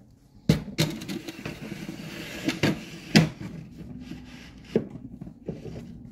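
Spice turntable loaded with jars being slid onto a kitchen cupboard shelf: a run of knocks and clatter as the jars and tray hit the shelf, loudest about half a second in and again about three seconds in.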